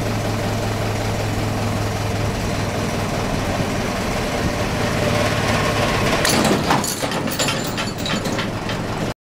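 A vehicle engine running steadily under load as it pulls on a strap to tension a Fischer FBN II 8/30 anchor bolt set in rock. About six and a half seconds in, the anchor tears out of the rock with a burst of sharp cracks, followed by scattered clatter. This is the anchor failing, at 1550 kg.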